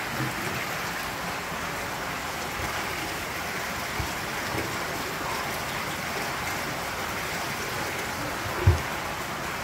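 Steady rushing and splashing of water circulating in indoor koi holding tanks. One brief low thump comes near the end.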